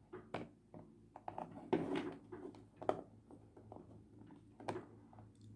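Small clicks, taps and scrapes of a wooden puzzle box and a tool being worked by hand, pulling at a stuck magnetic piece inside the box.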